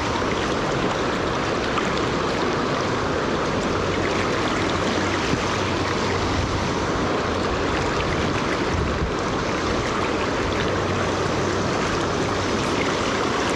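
Steady rush of a fast river pouring over rocks and through white-water riffles.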